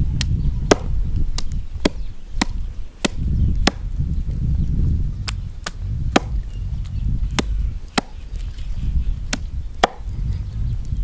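A small hatchet chopping food on a round wooden chopping board: sharp wooden knocks, about fifteen strokes roughly every half second, with a brief pause about four seconds in.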